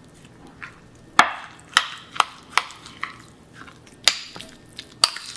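A metal spoon stirring a thick, wet marinade in a ceramic bowl. The spoon clinks sharply against the bowl about six times at an uneven pace, with soft squelching of the mixture in between.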